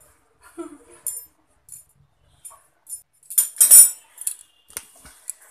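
Handling noise as the phone is carried: scattered light clicks and rustles, with a louder, denser rustle about three and a half seconds in.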